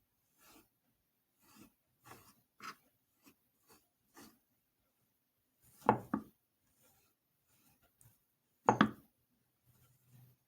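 Kitchen handling noises during food preparation: soft rubbing and light taps, then two sharp knocks, the first a quick double about six seconds in and the second near the end.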